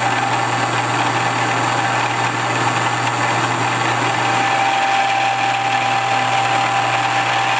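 Milling machine running, its homemade ball-shaped cutter plunging into a metal block to cut a round cavity: a steady motor hum under continuous cutting noise, with a thin steady whine coming in about halfway. The cutter is cutting a little better now that its back edge has been relieved.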